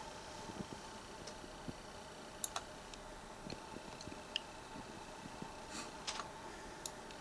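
Faint, scattered small clicks and ticks, a dozen or so at uneven intervals, over a low steady hum of room tone.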